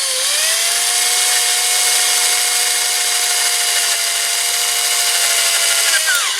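Small electric drill running steadily while it drills right through a metal part of a diecast model car to enlarge the hole. Its whine rises as it spins up at the start and drops as it winds down near the end.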